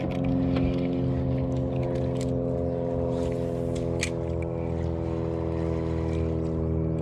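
Boat motor running steadily at a constant low speed, an even hum with no change in pitch, with a few light clicks around the middle.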